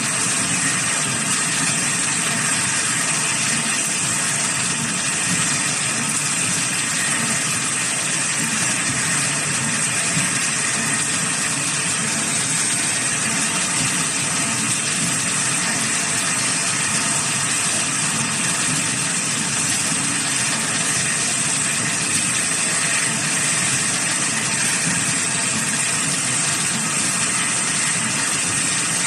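GT2-5 wire straightening and cutting machine running steadily, a continuous mechanical drone with a high hiss on top, as wire feeds through its rollers.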